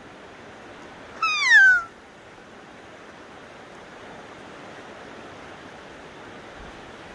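A single high, falling, bleat-like animal call lasting about half a second, a little over a second in, over a steady hiss.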